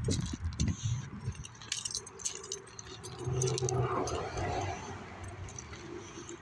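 Footsteps crunching on gravel with light jingling and rattling clicks. A low steady hum comes in for about two seconds midway.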